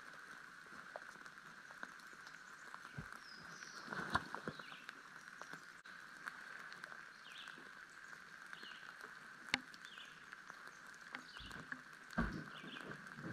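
Light rain pattering, with scattered drops ticking close by, over a steady faint high hum; faint short bird chirps come every second or two, and a few sharper knocks stand out, the loudest about four seconds in and near the end.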